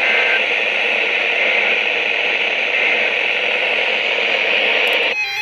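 Steady radio static hiss from a weather radio receiver between broadcast messages. It cuts off suddenly just before the end.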